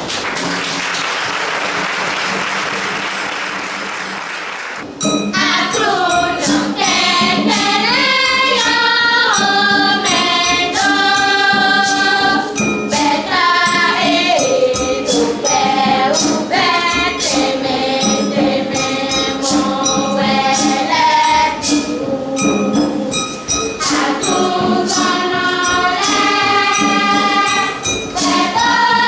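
For about five seconds, a steady hiss-like noise. It breaks off suddenly into a choir singing, with hand percussion such as a tambourine keeping a quick, steady beat.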